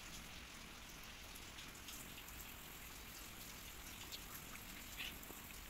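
Faint steady rain: an even patter with an occasional louder drip.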